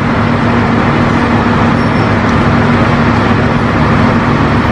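Engine of a track-laying machine running steadily: a constant hum over a broad mechanical rumble.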